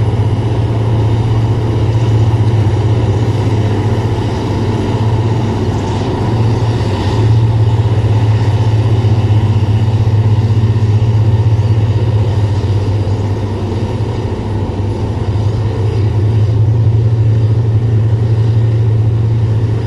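Military boat's engines running steadily as it speeds across the water, a loud low drone that barely changes.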